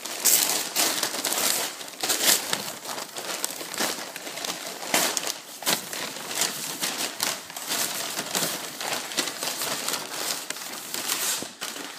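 Crumpled newspaper packing rustling and crinkling, in quick irregular bursts as it is handled and pulled out of a shipping box.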